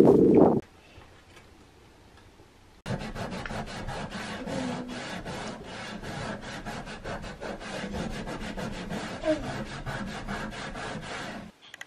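A cloth towel rubbing back and forth over a wooden tabletop, a fast run of wiping strokes, several a second, that starts about three seconds in and stops just before the end. A short louder sound cuts off just after the start.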